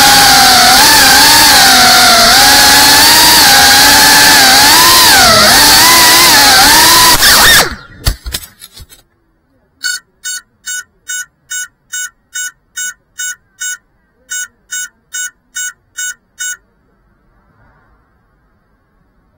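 FPV quadcopter's motors and propellers whining at high speed, the pitch wavering up and down with the throttle, until it cuts off in a crash with a few clicks about eight seconds in. After a pause, the downed drone's lost-model beeper sounds a steady run of short beeps, a little over two a second, with one short break.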